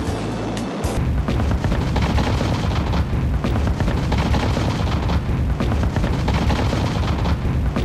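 Heavy gunfire and booming explosions in a dense, continuous barrage, starting about a second in.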